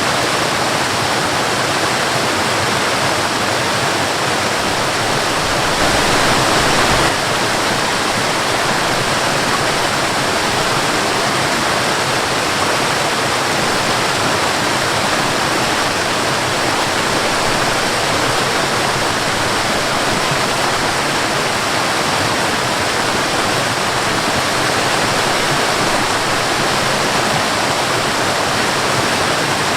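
Waterfall and river water rushing in a steady, full roar, swelling slightly for a moment about six seconds in.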